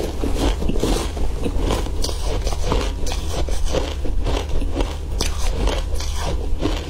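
Close-miked crunching of matcha-dusted ice being bitten and chewed, with a metal spoon scraping and digging through the ice in the bowl: a dense, irregular run of crisp cracks and scrapes.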